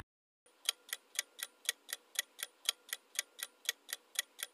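Clock-ticking countdown timer sound effect: even, sharp ticks at about four a second, starting about half a second in.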